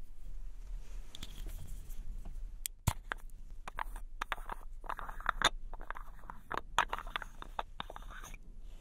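Long fingernails tapping and scratching on the plastic lid of a small Holika Holika Hard Cover concealer jar: a run of sharp clicks, thickening into quick scratchy taps in the second half.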